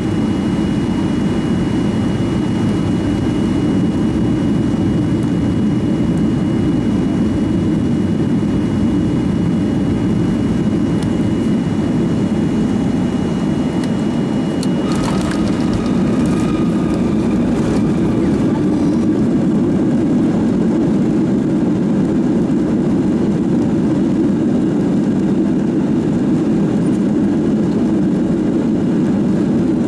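Cabin noise of a Boeing 737-800 with CFM56 engines on short final, a steady roar of engines and airflow. About halfway through, a few sharp knocks mark the main wheels touching down on the runway. The roar carries on through the rollout with the spoilers deployed, and a faint high whine stops just after touchdown.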